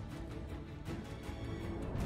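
Background music laid over the footage, with held notes and light percussive ticks.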